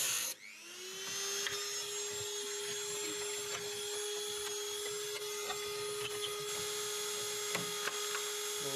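Small cut-off tool with a cutting disc working on rusted car-body sheet metal. A harsh grinding noise stops just after the start. A steady even whine from the tool follows, rising briefly before it settles, with a few faint clicks over it.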